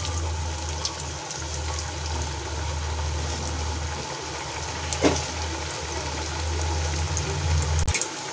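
Kebabs deep-frying in hot oil in an iron karahi, the oil bubbling and sizzling steadily with fine crackles, over a steady low hum that stops just before the end.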